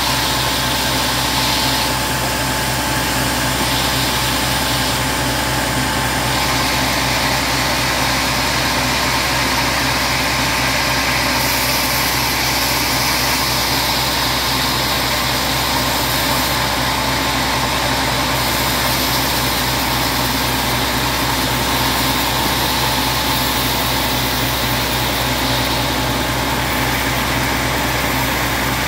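Band sawmill running steadily while a teak log on its carriage is sawn, the machine's noise even with a constant hum.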